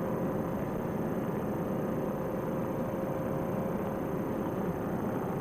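Paramotor trike's two-stroke engine and propeller running steadily at cruise: an even drone with a constant steady tone over it.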